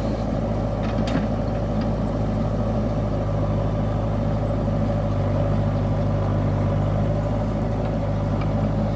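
Diesel engine of heavy earthmoving machinery running steadily at a constant speed, with a couple of faint clicks about a second in.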